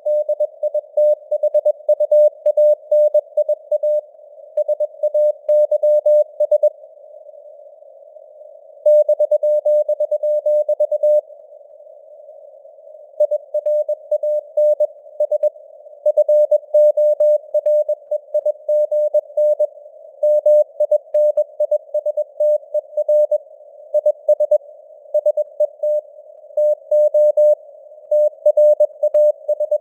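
Morse code (CW) keyed at 21 words per minute as a single mid-pitched beep tone, over simulated radio band noise and with the signal strength fading up and down (QSB). The keying stops twice for about two seconds, leaving only the hiss of the noise.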